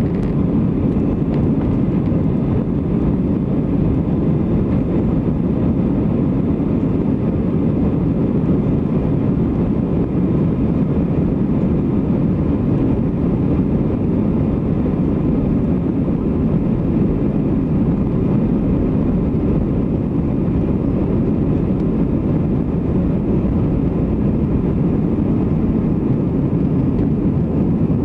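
Airbus A320 jet engines running at take-off power, heard from inside the passenger cabin during the take-off roll: a loud, steady, deep rush of noise with a faint high whine above it.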